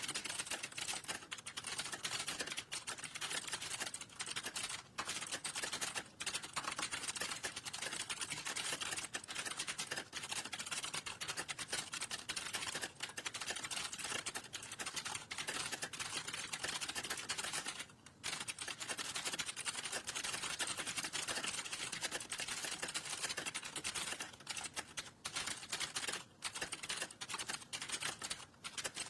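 Fast, continuous typing on a computer keyboard, a rapid stream of key clicks with a few brief pauses, one about two-thirds of the way through.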